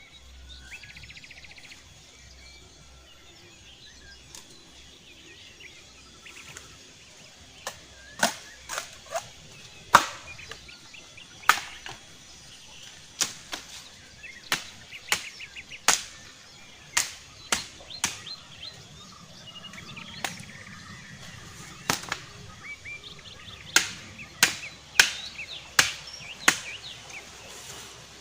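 Wood being chopped with a blade: a series of sharp strikes at an irregular pace, about one a second, beginning about eight seconds in. Birds chirp in the background.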